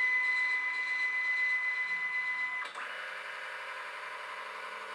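The flatbed scanner of a Canon MF113W multifunction laser printer running a scan: the scan head's motor gives a steady high whine. A little over two and a half seconds in, it changes to a quieter whine of a different pitch.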